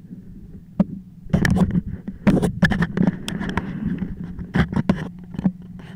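1976 Honda XL350's single-cylinder four-stroke engine idling steadily, with irregular knocks and rustling handling noise over it from about a second in until near the end.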